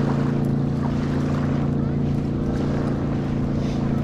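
An engine running steadily at one pitch, an even drone with no rise or fall.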